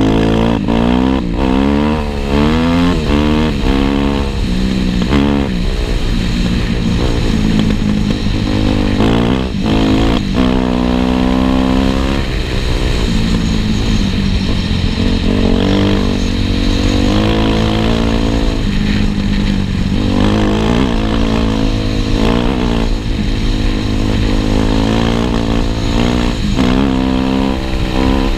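Kawasaki KX250F dirt bike's single-cylinder four-stroke engine revving up and down over and over, its pitch rising and falling with the throttle, with a longer climb in revs about ten seconds in.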